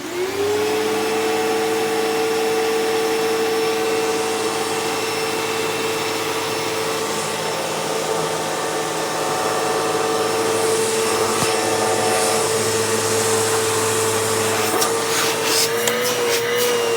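Hoover Elite Rewind upright vacuum switched on, its motor spinning up in the first half second and then running with a steady whine. Near the end a few clicks and knocks come through and the pitch wavers slightly.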